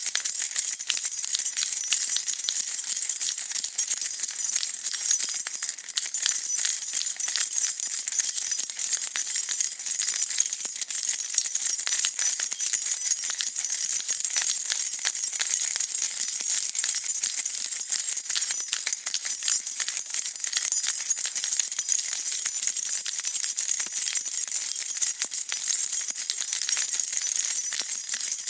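A bunch of metal keys being shaken continuously, a steady dense jingling and clinking with no pauses.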